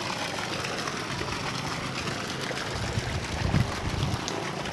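Steady rush of water flowing in the fish ponds, with a few low thumps from about three seconds in.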